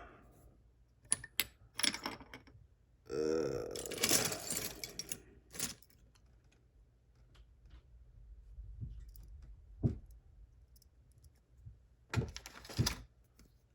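Small metal clicks and rattles of a lock and its parts being handled and worked with tools, with a denser stretch of rattling about three seconds in and another cluster of clicks near the end.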